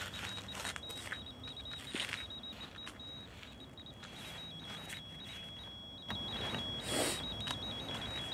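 A ghost-hunting trigger device going off: a thin, high electronic tone that keeps flipping between two close pitches. Under it are scattered clicks and rustling from someone moving about, with a louder rustle about seven seconds in.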